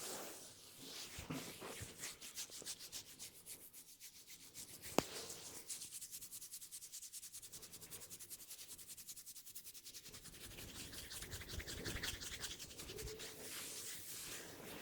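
Hands rubbing briskly over hair and scalp during a head massage, fast even strokes, with one sharp click about five seconds in.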